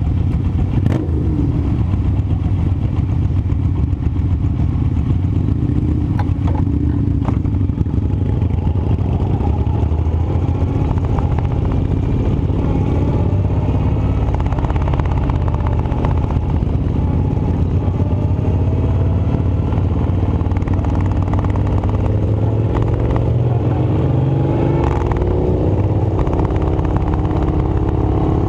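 Sawmill machinery running: a steady engine drone whose whine drifts and rises in pitch in the second half, with a few sharp knocks.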